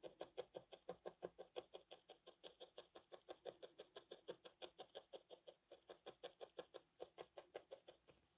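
A single felting needle jabbing rapidly and steadily into wool fibre and the felt-and-foam mat beneath, about six soft stabbing strokes a second, felting a small wool nose down onto the cat shape. The stabbing stops near the end.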